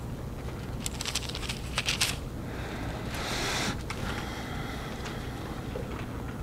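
Bible pages being leafed through at a lectern: a few light flicks and ticks in the first two seconds, then a longer paper rustle about three seconds in, over a steady low hum.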